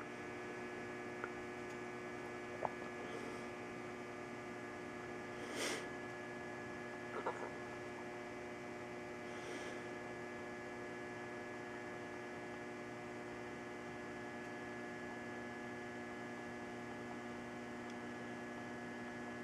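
A steady electrical hum holding several constant pitches, with a few faint clicks and a brief rustle early on.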